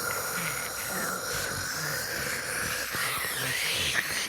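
Loud snoring from a sleeping character.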